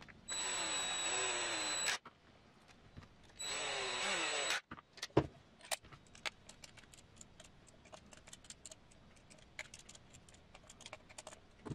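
Cordless electric screwdriver running in two short bursts, about one and a half seconds and one second long, its whine dropping in pitch as it drives screws into a plastic transmission housing. Then comes a knock and a run of light clicks and ticks of small parts and a hand driver being handled.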